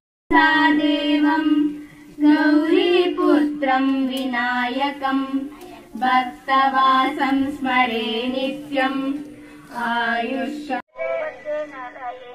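A high solo voice singing a melodic song, holding long notes and bending between them. Near the end it breaks off for a moment and a fainter singing voice carries on.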